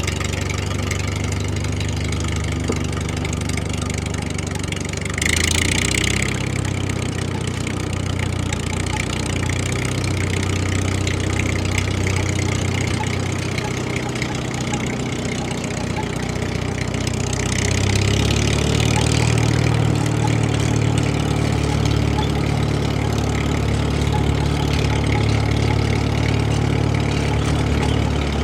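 A motor vehicle's engine idling steadily, with two short bursts of hiss about five seconds in and about eighteen seconds in. After the second burst the engine note gets a little louder.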